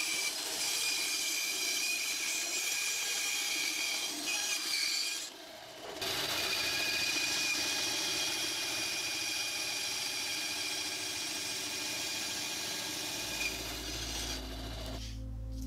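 Bandsaw cutting through a block of wood: a steady running noise with a high whine. It dips briefly about five seconds in, and music comes in near the end.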